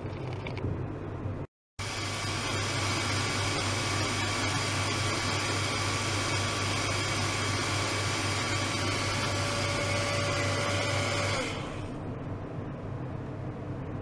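Steady machine hum from an ultrasonic cleaning tank with its water-circulation pump: a strong low buzz with several high whining tones. After a brief dropout near the start it runs on, then the tones stop abruptly about eleven and a half seconds in, leaving a fainter steady hiss.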